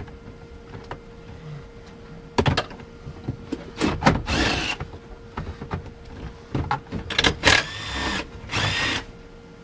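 DeWalt cordless drill/driver with a socket whirring in three short runs, about four seconds in and twice near the end, as it backs out the dash bolts. Sharp clicks and knocks of tools and parts fall in between.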